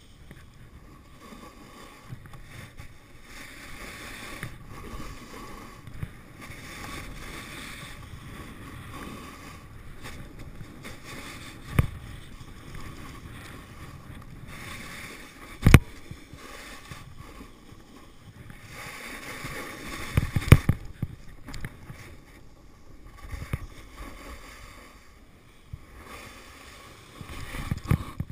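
Snowboard sliding and carving down firm spring snow, the edge scraping and hissing on the snow in swells with each turn, with a few sharp knocks from bumps in the run.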